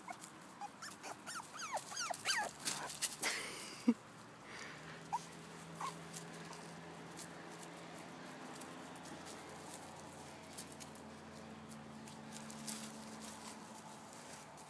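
Chihuahua puppies whimpering in a quick run of short, high squeaks over the first four seconds, then only a few soft clicks.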